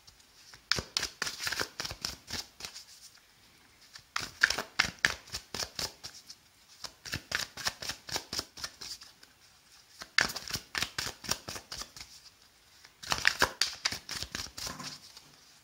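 Tarot deck shuffled by hand, overhand style: five bursts of quick, soft card clicks, each about two seconds long, with short pauses between.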